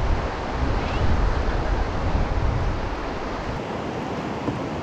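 River rapids rushing in a steady wash of whitewater noise. Wind rumbles on the microphone for the first three and a half seconds or so.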